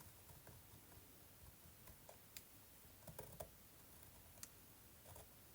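Near silence with a few faint, scattered clicks as a letter A is traced along a plastic stencil.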